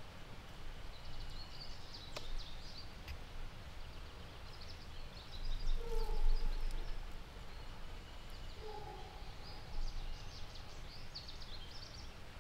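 Small birds chirping in short scattered high notes, with a few brief lower-pitched calls about six and nine seconds in, over a low rumble that swells midway.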